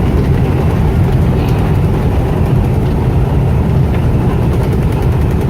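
Truck cruising at about 80 mph: steady engine, road and wind noise, heavy in the low end.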